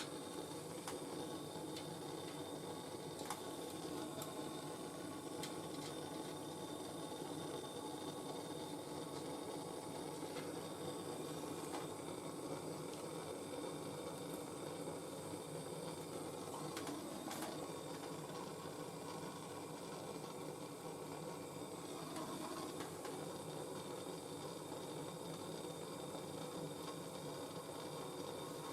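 MAPP gas hand torch burning with a steady hiss, heating a cracked copper corner joint so the solder flows in. A few faint ticks.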